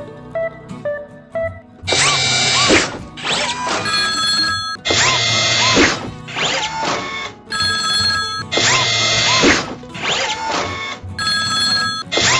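Level-crossing warning bell ringing in loud bursts of about a second each, over background music, after a few short beeps in the first second and a half.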